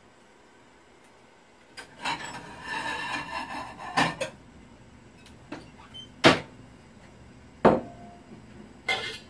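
Kitchen handling noise: a short scraping, rustling stretch about two seconds in, then a series of sharp knocks and clunks, a second or so apart, as things are set down or cupboard doors shut.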